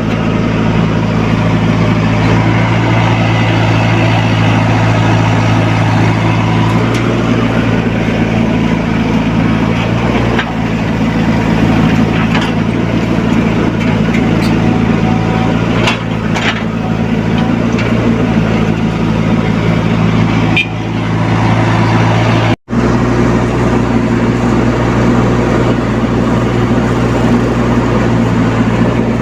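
Diesel engine of a Komatsu PC75UU mini excavator running steadily at work, with a few short knocks. The sound cuts out for an instant about two-thirds of the way through.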